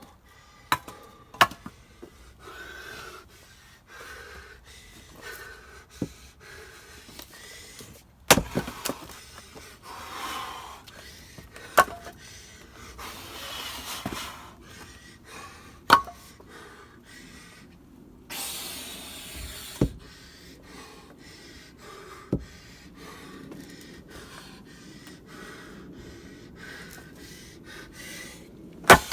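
Ash firewood being split by hand: sharp wooden knocks and cracks every few seconds as the rounds are struck, with a person breathing hard between strikes.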